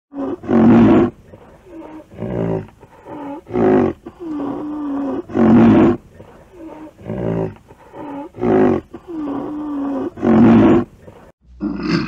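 Rhinoceros calling: a run of loud, harsh calls about every second and a half, with softer, lower drawn-out calls with a wavering pitch between them. The calls stop shortly before the end.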